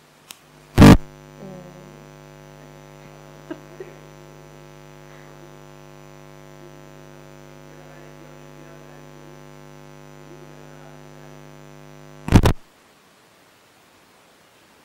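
Electrical mains hum from the room's microphone and sound system: a loud pop about a second in, then a steady buzzing hum with many overtones for about eleven seconds, ending in a second loud pop. The pops that bracket the hum are typical of a microphone channel being switched on and off.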